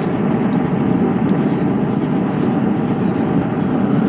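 Gas forge burner running with a steady roar of flame, heating the metal.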